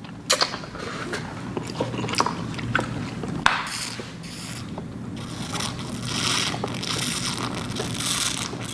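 A person eating spicy noodles: chewing and scraping noises, with a few sharp clicks.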